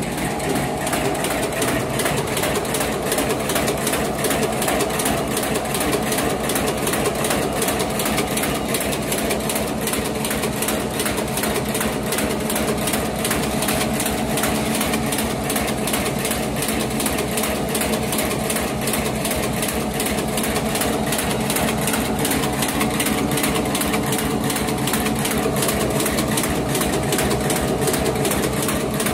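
LSD 700B automatic high-speed paper bag making machine running in production, a fast, even mechanical clatter over a steady motor hum.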